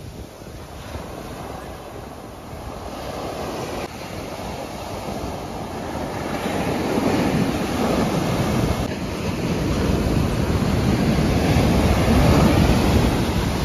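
Sea surf breaking and washing up the sand, with wind buffeting the microphone. The surf grows louder through the second half.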